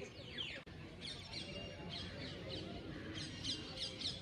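Many birds chirping, a steady chorus of short falling calls repeated over and over, above a low background din.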